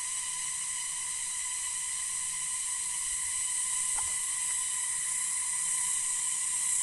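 A steady, high-pitched chorus of insects buzzing in dense forest, heard as an even hiss, with a faint tick about four seconds in.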